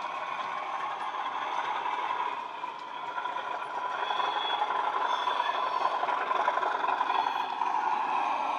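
Bachmann Class 37 model's DCC sound decoder playing the English Electric diesel engine sound through the model's small speaker, running steadily and getting louder from about three seconds in, with a thin high whine joining about four seconds in.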